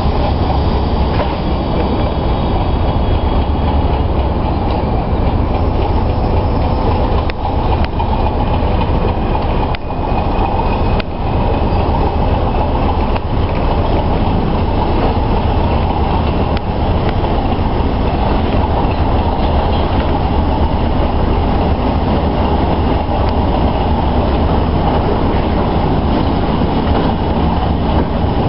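Train running along the track: a steady rumble with a few sharp clicks.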